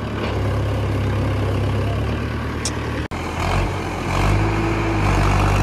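Farmtrac tractor's diesel engine running under load while hauling a heavily loaded straw trolley up a rough, muddy track. The sound breaks off for an instant about three seconds in, then the engine comes back louder.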